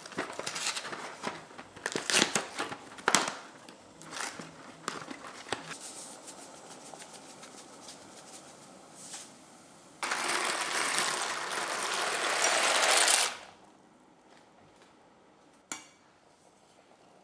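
Kitchen food-preparation sounds: a run of sharp clicks and knocks, then a steady hissing or grinding noise for about three seconds that stops abruptly.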